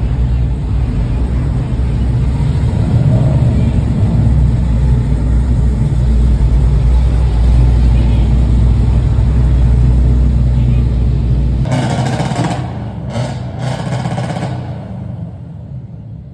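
Car engines and exhaust rumbling loudly and steadily as cars roll slowly past. About twelve seconds in the rumble stops and three short bursts of rushing noise follow, then the sound falls away.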